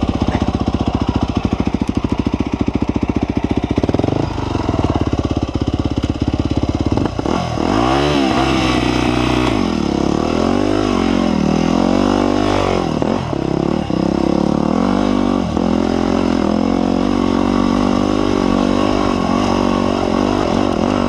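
Yamaha WR250 dirt bike engine, heard onboard. It pulses evenly for the first several seconds, then revs up and down over and over as the bike is ridden.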